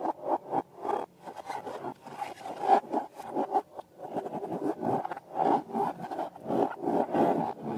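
Slime being stirred and worked by hand: a busy, irregular run of sticky scraping and squishing strokes.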